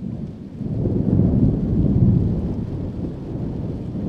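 Low rolling thunder that comes in suddenly and swells about a second in, over a faint hiss of rain.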